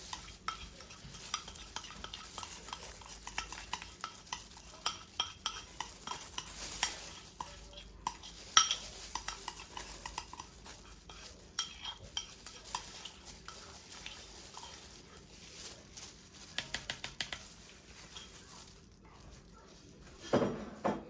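A spoon scraping and clinking against a bowl as thick barbecue marinade is scraped out and stirred, with many small irregular taps and a wet, sticky sound. One sharper clink about eight and a half seconds in.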